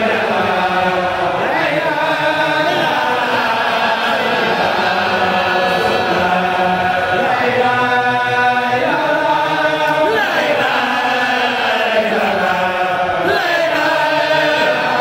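A group of men chanting religious verses together in unison. The long sung notes slide up and down without a break.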